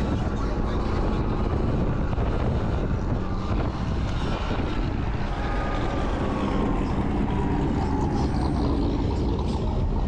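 Wind rushing over the microphone and road noise while riding a Sur-Ron electric dirt bike. A faint whine slides down in pitch from about halfway through.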